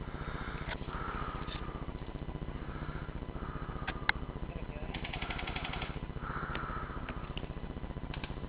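Airsoft guns firing: scattered single sharp cracks, and a rapid burst lasting under a second about five seconds in, over faint distant voices and a steady low rumble.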